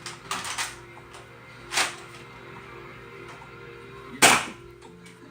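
Nerf blaster firing twice, two short puffs of air about two and a half seconds apart, the second louder, after a few softer rustling bursts near the start; faint music plays underneath.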